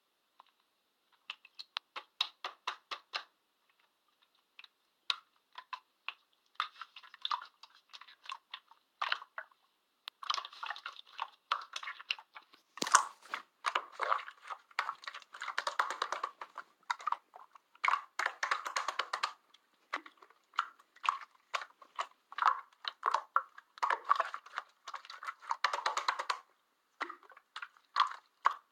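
Slime being squeezed and worked by hand: trains of small crackling pops and clicks, sparse with short gaps at first and nearly continuous from about ten seconds in.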